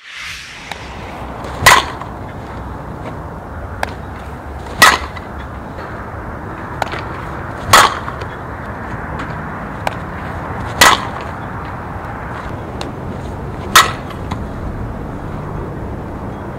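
A softball bat hitting pitched balls: five sharp, ringing cracks of contact about three seconds apart. A faint click comes about a second before each hit.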